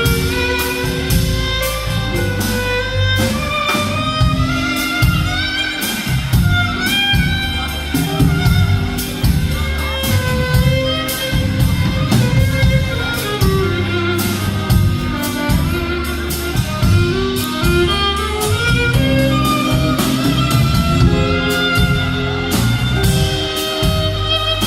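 Live band playing an instrumental passage: a violin melody with vibrato over steadily strummed guitar chords.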